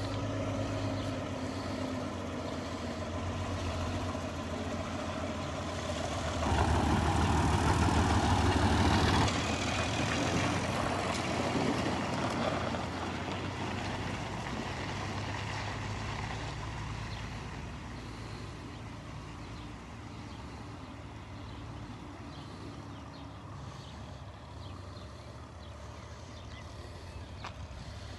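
IMT 5106 tractor's diesel engine running as it hauls a trailer of round bales past. It comes in getting louder, is loudest about seven to ten seconds in as it goes by, then fades slowly as it pulls away.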